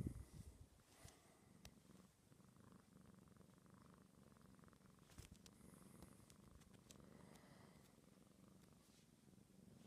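Kitten purring, faint and steady. A brief low thump comes right at the start, with a few faint clicks later on.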